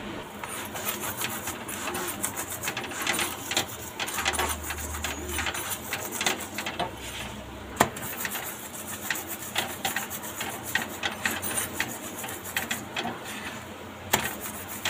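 Irregular clicking and tapping of metal kitchen tongs as a roti is handled on a tawa over a gas stove, with one sharper click about eight seconds in.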